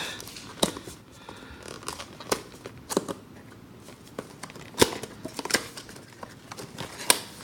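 A small product box and its packaging being opened by hand: rustling cardboard and plastic with scattered sharp clicks and snaps, the loudest about five seconds in and near the end.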